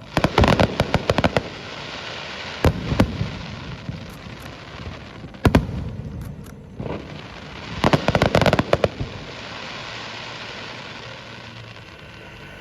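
Aerial firework shells bursting: a rapid volley of sharp bangs at the start, single reports around three and five and a half seconds in, and another rapid volley about eight seconds in, with crackling in between.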